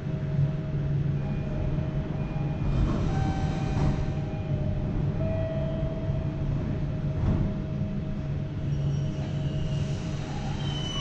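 A vehicle running: a steady low drone with a few faint steady tones above it.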